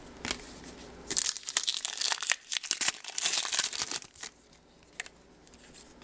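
Foil wrapper of a trading card pack torn open and crinkled by hand. The crackling comes in two stretches, starting about a second in and again around three seconds in.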